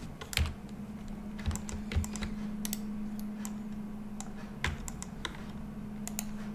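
Irregular, scattered clicks of a computer keyboard and mouse being worked, over a steady low hum.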